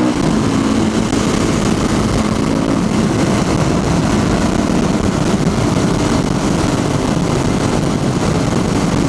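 Motorcycle engine running as the bike is ridden, a steady engine note for the first few seconds, then a rougher, noisier sound.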